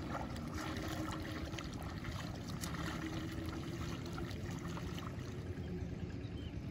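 Long-handled paddy weeder (sorok) pushed through the water and mud of a flooded rice field, sloshing and trickling, over a steady low rumble.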